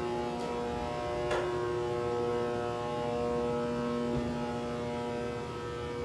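Vintage Marshall freight elevator travelling in its shaft: the hoist machinery makes a steady hum of several tones, with two short clicks about half a second and a second and a half in.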